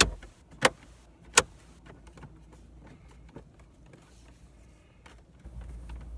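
Plastic dashboard trim bezel of a Toyota Corolla snapping into place: three sharp clicks of its clips within the first second and a half, then faint handling sounds. A low hum comes up near the end.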